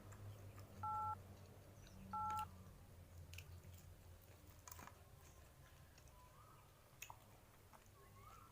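Two short, identical two-tone beeps about a second apart, like telephone keypad (DTMF) tones. They sit over faint scattered clicks and a low steady hum.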